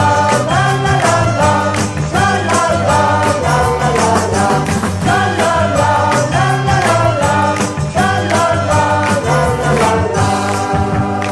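Upbeat band music with a steady beat and singing.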